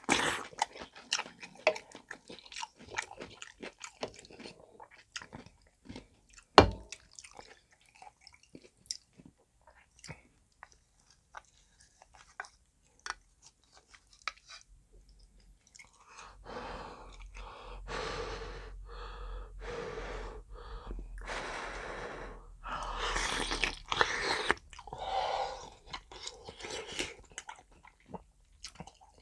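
Close-up chewing and mouth sounds of a person eating dumpling soup, with small wet clicks and one sharp louder click about a third of the way in. In the second half comes a run of louder noisy mouth sounds, several in a row with short gaps.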